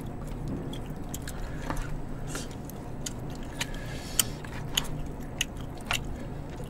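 Close-up eating sounds: chewing and gnawing meat off pork bones, with scattered sharp clicks and taps of chopsticks and spoons against plastic takeout containers. A faint steady hum runs underneath.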